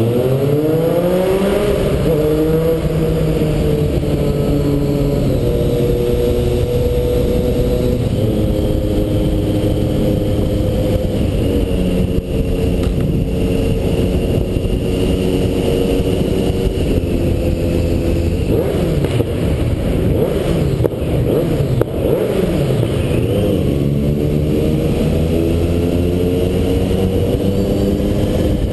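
Motorcycle engine under way, rising in pitch as the bike accelerates at the start, then holding a steady cruise. It eases off and wavers briefly about two-thirds of the way through before pulling up again. Steady wind rush over the helmet-mounted camera runs underneath.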